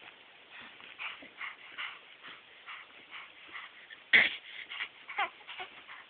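Baby making a quick string of short, high squeaky noises and slobbery mouth sounds, with one louder burst about four seconds in.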